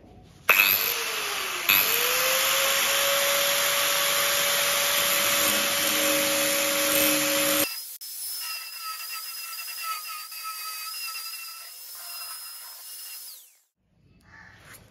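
A power tool's motor starts up, gives a second jolt, then runs loud and steady at a constant speed. After about seven seconds it changes abruptly to a quieter, thinner whir with several steady high tones, which fades out shortly before the end.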